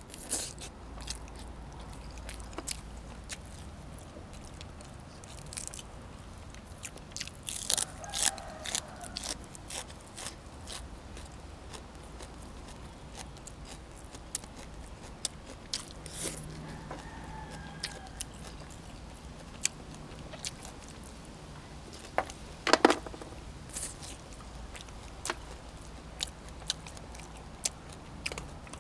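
A person eating pork ribs and fresh vegetables close to the microphone: steady chewing with scattered crunchy bites. There is a burst of crunching about eight seconds in and a sharp loud crunch about 23 seconds in.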